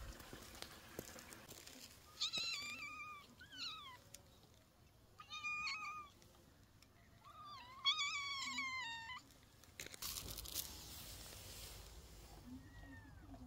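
Domestic cat meowing: four or five high-pitched meows in a row, the longest and loudest about eight seconds in, followed by a brief burst of noise and a faint meow near the end.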